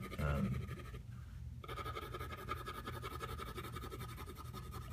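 Colored pencil scratching on paper as it is worked over a painted illustration, over a steady faint whine and low hum. The sound cuts out briefly about a second in.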